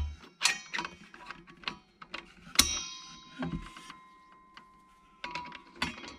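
Small metallic clicks and taps from the circular saw's blade, flange and bolt being handled and fitted by hand. About two and a half seconds in, a sharper clink sets the steel blade ringing briefly.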